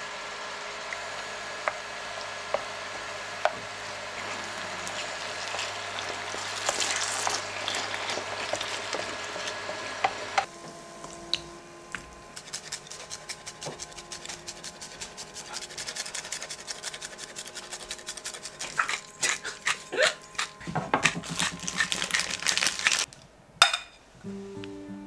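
Penne being stirred and tossed into tomato sauce in a frying pan with a wooden spoon and a plastic pasta server, with light taps on the pan over a steady hum. Then a dense run of clicks and scrapes as the pasta is served into ceramic bowls with the server. Acoustic guitar music starts near the end.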